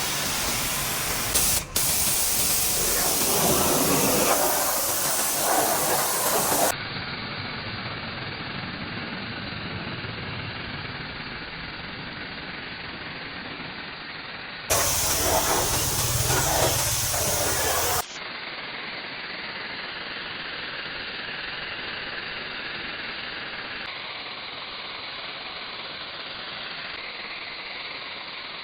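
High-pressure washer spraying water in a steady hiss, in clips cut together: louder, brighter spraying near the start and again for a few seconds past the middle, with duller, quieter spraying in between and towards the end.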